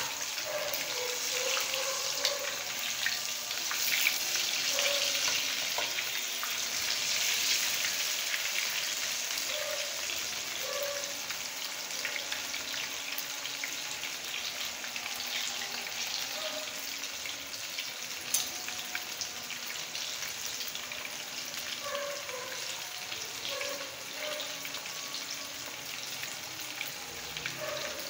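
Besan-battered fish pieces frying in hot oil: a steady sizzle with dense crackling, a little louder in the first several seconds, and one sharper pop past the middle.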